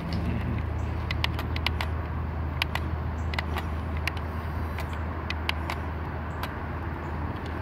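Double E 17-channel RC model excavator's small electric motors and gearing humming steadily as the arm and bucket work the dirt, with sharp clicks and ticks scattered throughout.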